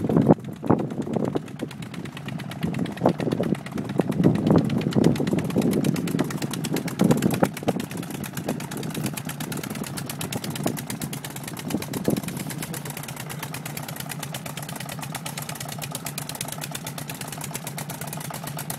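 A motor running steadily with a low hum. Irregular knocks and rustles sound over the first twelve seconds, then the hum carries on alone.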